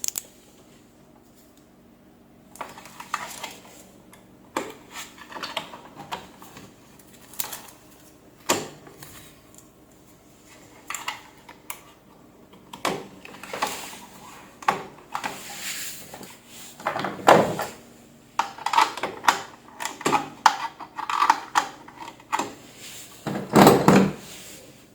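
Irregular clicks, knocks and clatter of hard parts and tools being handled during repair work, starting a couple of seconds in and growing busier, loudest in a burst near the end.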